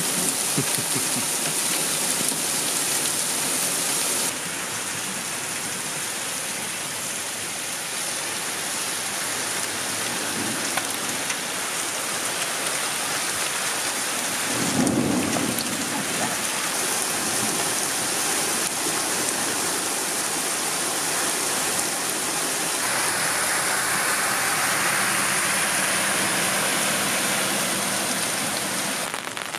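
Heavy rain pouring steadily onto a flooded road, with a low rumble of thunder about halfway through.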